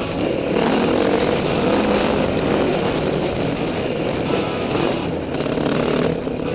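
Trail bike engine running steadily while being ridden along a gravel track.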